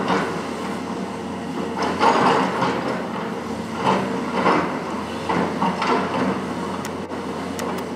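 Hitachi ZX470LCH-3 crawler excavator at work: its diesel engine runs steadily under repeated louder bursts of clanking and scraping, about one every second.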